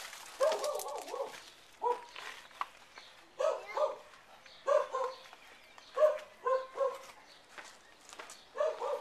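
A dog barking repeatedly, in short runs of two or three barks every second or so.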